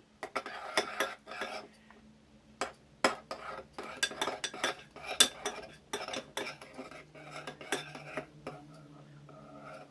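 A spoon stirring thick, sticky slime in a bowl, knocking and scraping against the bowl in irregular clicks.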